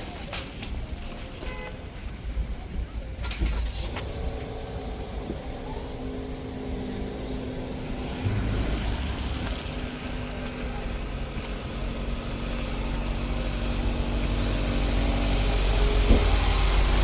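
A car running, with a few clicks and knocks in the first seconds; a steady low engine hum takes over about eight seconds in and grows gradually louder.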